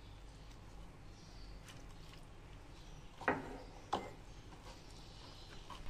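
Faint scraping of a metal spoon stirring flour and water into a batter in a bowl, with two sharp clicks a little over half a second apart near the middle.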